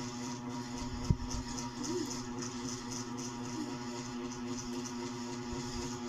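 Steady motor hum made of several even, unchanging tones, with one sharp click about a second in.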